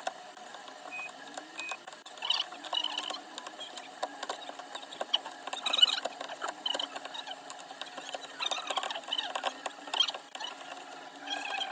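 Small tools working close up on a cracked iPhone 12 Pro Max back glass: irregular clicks, scratches and short squeaks.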